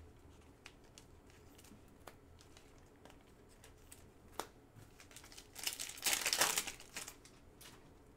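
Trading-card pack wrapper crinkling as it is torn open and pulled off the cards, loudest for about a second and a half past the middle, after a few light clicks from the cards being handled.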